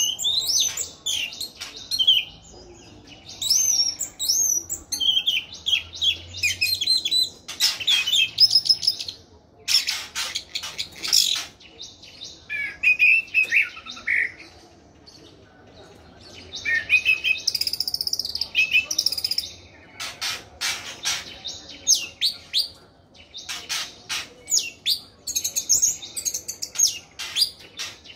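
Orange-headed thrush in full song: bursts of rapid, varied phrases with sliding high notes, separated by short pauses.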